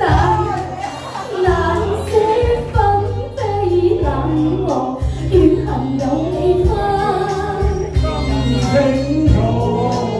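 Karaoke duet: a woman sings a Cantonese song into a handheld microphone over a backing track with a steady bass line.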